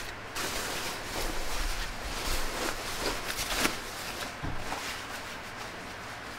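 Cloth rustling and handling noise: fabric being moved and folded in irregular rustles with a few soft knocks, busiest over the first four seconds, then dying down to a faint hiss.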